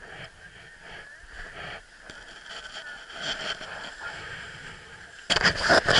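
Skis hissing and scraping over packed, groomed snow during a downhill run. About five seconds in, a much louder rough, crackling rustle sets in over it.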